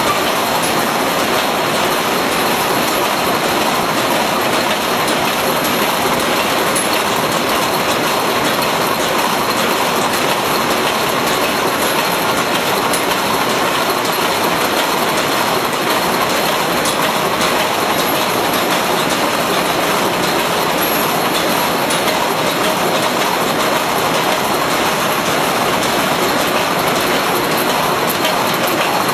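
Corrugated-board flexo printer slotter die-cutter folder-gluer running at production speed: a loud, steady, even mechanical din of the machine.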